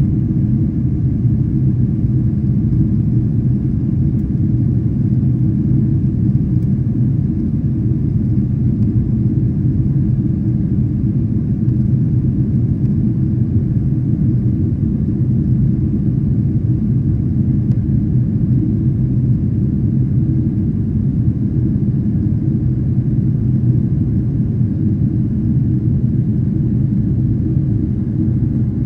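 Steady low rumble of a jet airliner in flight, heard inside the passenger cabin.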